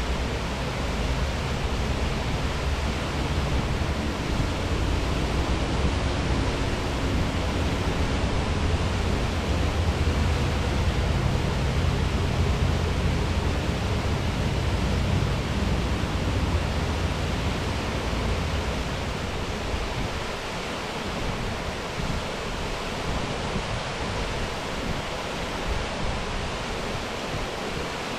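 Eas Fors waterfall rushing steadily. The deep low rumble under the rush thins out about two-thirds of the way through.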